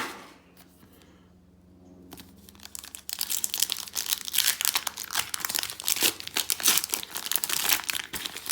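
Foil Pokémon TCG booster pack wrapper being torn open and crinkled. It is fairly quiet at first, then from about three seconds in comes a dense, continuous crackling.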